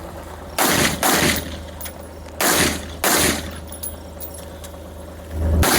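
Five rifle shots fired in a course of fire at a practical shooting match: two quick pairs about half a second apart, then a single shot near the end, each with a short echo.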